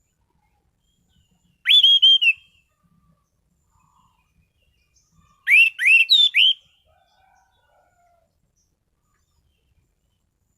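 An anis cendana (orange-banded thrush) singing: two short phrases of loud, clear whistled notes that each sweep upward, the first phrase just under two seconds in and a second of about four notes around five and a half seconds in.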